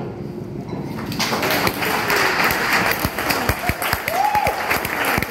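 Small audience clapping after the music ends, starting about a second in, with a short voice-like whoop about four seconds in.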